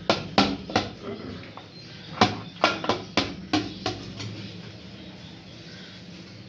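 Cooking utensils knocking and clattering: three sharp strikes in the first second, then a quicker run of about six between two and four seconds in, over a steady low hum.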